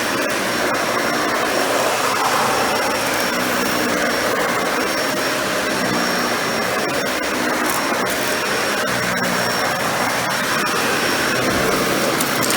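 Dyson Ball Animal 2 upright vacuum running steadily on an area rug, its suction motor giving a loud, even rush with a thin high whistle over it.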